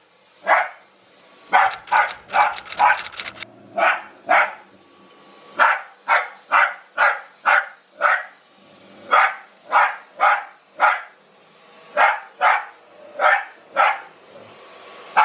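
A dog barking over and over, sharp barks about two a second with a few short pauses. A quick run of sharp clicks comes in under the barking about two seconds in.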